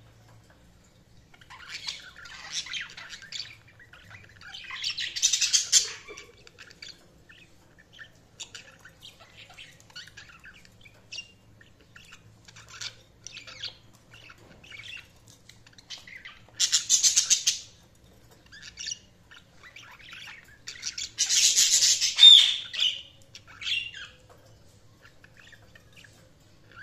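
Budgerigars chirping in short, scattered calls, with three louder harsh squawks: about five seconds in, about seventeen seconds in, and a longer one around twenty-one seconds in.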